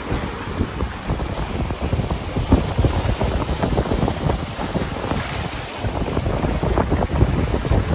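Sea waves washing over and splashing against the rock blocks of a jetty, with heavy wind buffeting the microphone in an uneven, gusty rumble.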